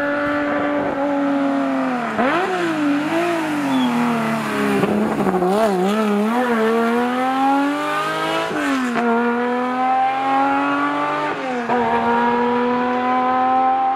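Classic air-cooled Porsche rally car's engine at speed: it holds its revs, drops with throttle blips as the car brakes and changes down into a tight bend, and wavers low through the corner. It then revs up hard out of the bend with two upshifts, the pitch falling sharply at each one.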